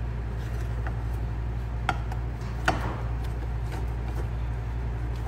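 Silicone spatula stirring and scraping a thick cooked flour-and-water paste (tangzhong) around a granite-coated nonstick pan, with a few light knocks against the pan, over a steady low hum.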